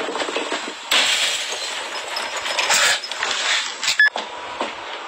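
A noisy commotion of clattering and crashing, with a sudden loud burst about a second in and a couple of sharp knocks near the end.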